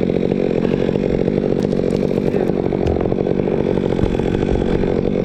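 Chainsaw running steadily under load, cutting through very hard Australian pine (ironwood).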